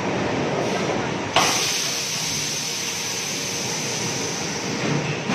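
Large 50 kW slide-way high-frequency welding machine with a steady hiss that starts suddenly about a second and a half in, over a lower background machine noise.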